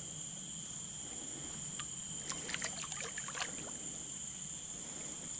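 Steady high-pitched insect chorus, with a brief run of short clicks and knocks about two to three and a half seconds in.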